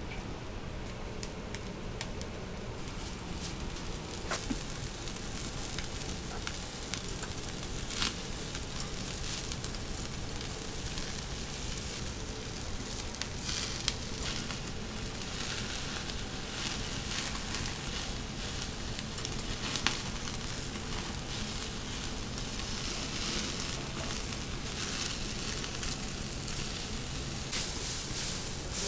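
Chicken skewers sizzling as they cook, a steady hiss that grows stronger after the first couple of seconds, with a few sharp clicks.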